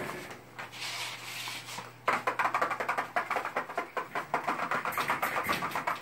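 Puppies' claws clicking rapidly on a laminate floor as several run about. The quick, dense clatter starts about two seconds in.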